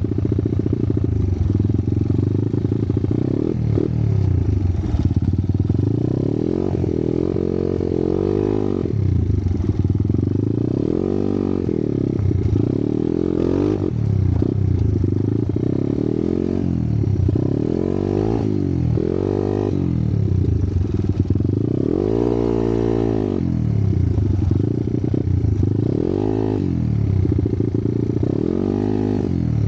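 Trail motorcycle's single-cylinder engine revving up and down over and over, throttle opened and shut every second or two as it picks its way along a rough, overgrown track. Clattering from the bike and brush scraping past it come and go underneath.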